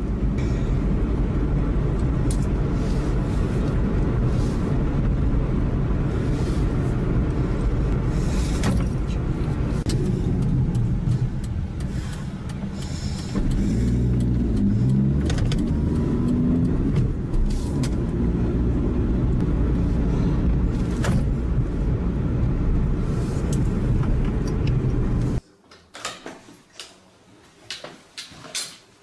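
Car engine and road noise, a steady low rumble with a brief rise and fall in engine pitch partway through. It cuts off abruptly near the end, leaving a few short clicks and knocks.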